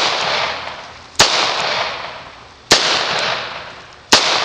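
Three shots from a .38 Special revolver, about a second and a half apart. Each is a sharp crack followed by a long fading echo.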